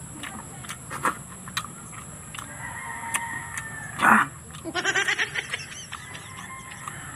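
A goat bleats once, a short quavering call just under five seconds in, right after a brief loud burst of noise. A steady high drone runs underneath, with small clicks.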